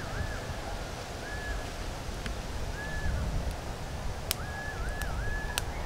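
A bird repeating a short whistled call with quick dips in pitch, four times, over a steady low outdoor rumble. A few sharp pops from the charcoal fire under the grilling fish come in the second half.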